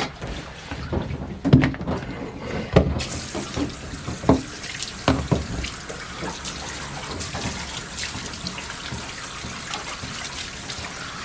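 Water running from a bath sprayer into a tub during a dog's bath, switched on about three seconds in and running steadily after that, with a few knocks and thumps before it starts.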